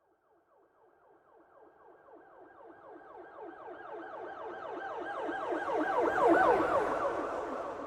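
Police car siren in its fast yelp mode, sweeping up and down several times a second. It grows louder from nothing to a peak about six seconds in, with road rumble beneath, then begins to fade as the vehicle passes.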